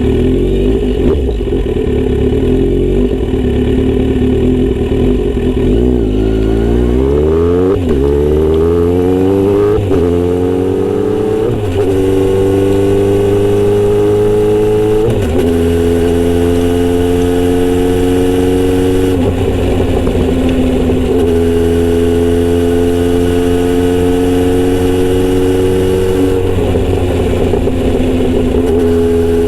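Kawasaki Z900RS inline-four running through a Misty Kintaro short-pipe muffler with a 70 mm L silencer. It runs low and steady for a few seconds, then the bike pulls away: the pitch climbs and drops with each of about four upshifts. After that it cruises at a steady pitch.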